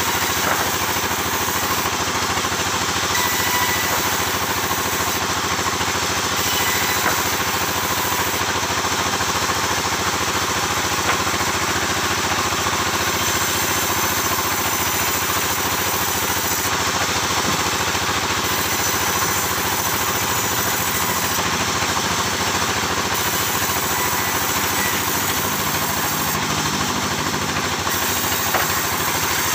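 Sawmill engine running steadily with an even, unbroken mechanical drone.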